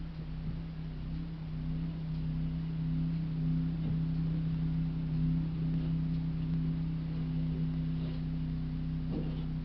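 Steady low mechanical hum, like a running motor, with a few faint clicks.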